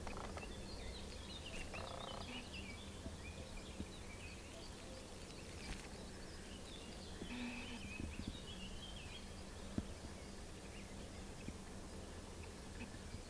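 Faint outdoor ambience: small birds chirping in the background, scattered short high calls, over a steady low rumble.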